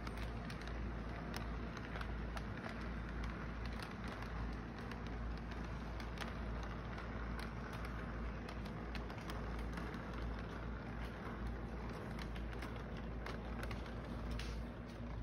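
O gauge electric model train rolling past on plastic-roadbed track: a steady rumble of wheels and motor, with frequent short sharp clicks.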